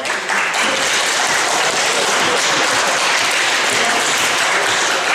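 An audience of pupils applauding, with dense, steady clapping.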